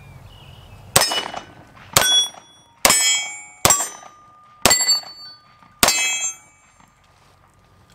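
Six shots from a Beretta 92X Performance 9mm pistol, roughly one a second, most followed by the clang and ring of a struck steel target.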